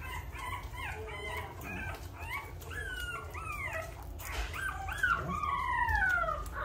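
Three-week-old American bully puppies whining: a string of short, high cries that rise and fall, with one longer whine sliding down in pitch near the end.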